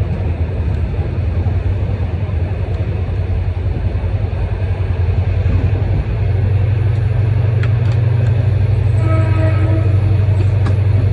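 Steady low rumble of a moving vehicle that grows louder about halfway through, with a brief pitched tone near the end.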